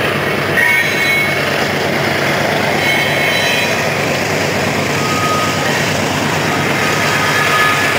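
Covered hopper cars of a freight train rolling past: the steady rumble and clatter of steel wheels on the rails, with brief high-pitched squeals now and then.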